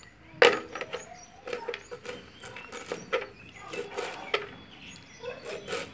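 Kitchen knife chopping banana flower florets on a chopping board: irregular sharp knocks of the blade against the board, the loudest about half a second in.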